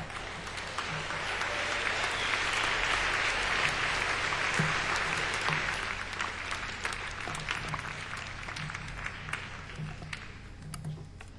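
Audience applauding, building over the first few seconds and then slowly dying away, with scattered last claps near the end.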